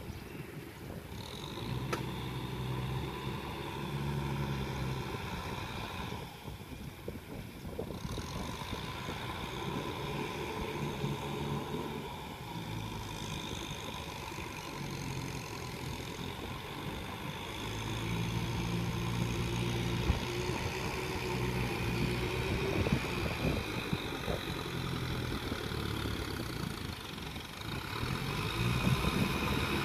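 Kubota M6040SU tractor's four-cylinder diesel engine running steadily under load as it works through a flooded rice paddy with a rotary tiller. It grows louder near the end as the tractor comes closer.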